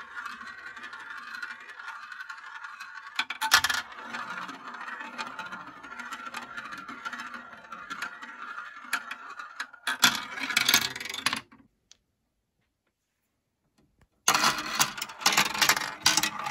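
A plastic marble rolls and spins around the funnel dishes of a plastic marble run with a steady rolling whirr, broken by clatters as it drops through the centre holes and tubes. The sound stops for about two seconds, then more clattering follows as it runs along further track pieces.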